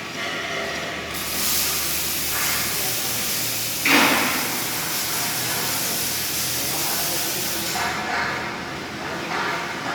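A steady, high-pitched hiss that starts about a second in and stops near the end, with a brief loud burst about four seconds in.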